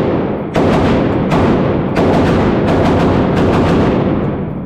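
PSA Generation 3 AK rifle firing a string of about ten shots, irregularly spaced and coming faster in the second half, each trailing a long echo. It is firing bad reloaded rounds, which this rifle cycles although they failed in another AK.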